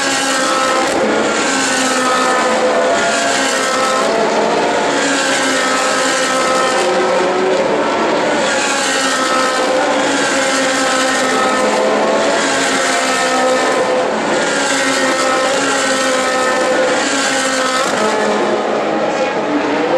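Ferrari 458 Challenge race cars' naturally aspirated V8 engines at high revs on track, the engine note rising again and again as the cars accelerate through the gears.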